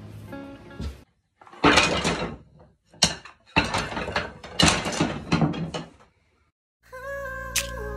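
Thin strips of walnut, cherry and hard maple clattering as they are dropped and tossed onto a workbench, a dense run of loud wooden clacks.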